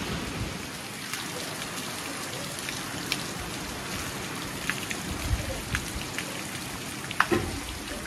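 Heavy rain falling steadily, a constant hiss with scattered sharper drips and taps close by, the loudest about seven seconds in.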